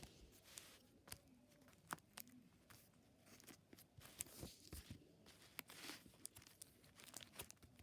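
Faint crinkly clicks and crackles as the bubbles of a home-made paper, cardboard and tape pop it are pressed by hand, in short irregular snaps.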